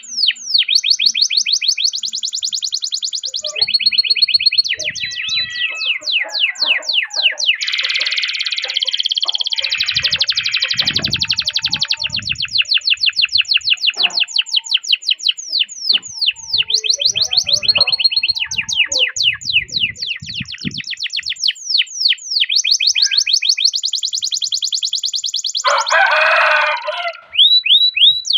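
Domestic canary singing a long continuous song: rapid repeated chirps and fast rolling trills, changing from one trill to the next every second or two.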